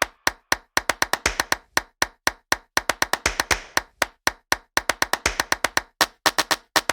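Percussive passage of electronic music: a quick, uneven run of sharp clap-like clicks with short gaps between them and no other instruments.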